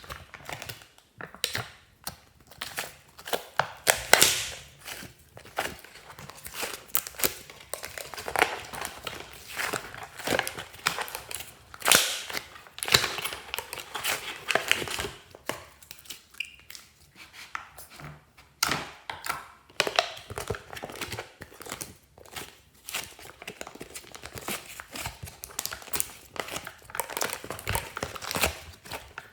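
Glossy slime being squished and stretched by hand, giving a dense, irregular run of sticky clicks, crackles and pops.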